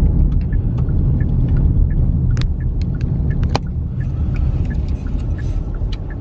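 Car road noise heard from inside the cabin while driving: a steady low rumble, with scattered light clicks and rattles.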